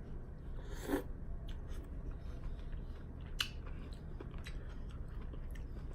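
Close-miked chewing of wonton soup, with scattered small wet mouth clicks over a low steady hum.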